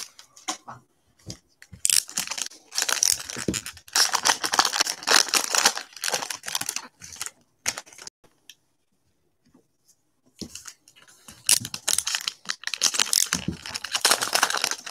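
Trading-card pack wrappers being torn open and crinkled by hand, in two spells of ripping and rustling with a near-silent pause of about two seconds between them.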